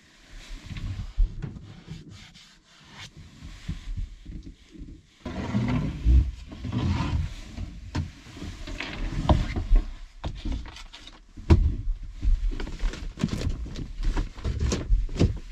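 A thin plywood ceiling board being handled and pushed up into place between the framing, scraping and rubbing against the wood with irregular knocks and clicks.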